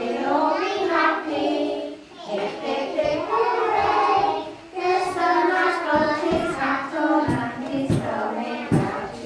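Young children singing a song together as a choir.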